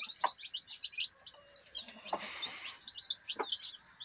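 A brood of young chicks peeping constantly in quick, high chirps. A few short, low clucks from the broody mother hen come in between.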